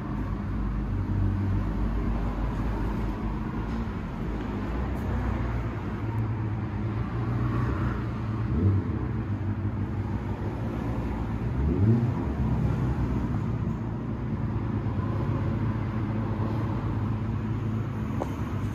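Triumph Scrambler 900's parallel-twin engine idling steadily, with two short throttle blips: a small one about nine seconds in and a bigger one around twelve seconds, each rising in pitch and falling back to idle.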